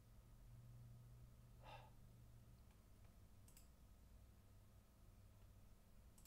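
Near silence with a faint low hum, a faint breath about two seconds in, and a couple of faint clicks, likely a computer mouse.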